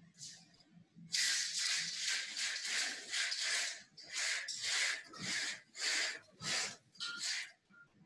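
Curtains being drawn across a window: their runners scrape along the rail in a series of about a dozen short swishes, roughly two a second, with the fabric rustling.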